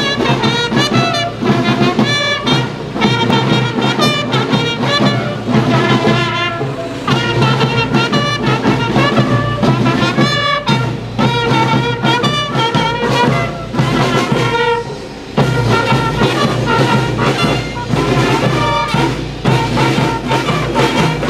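Marching fanfare band of trumpets, bugles and drums playing a march, with a brief break in the music about fifteen seconds in.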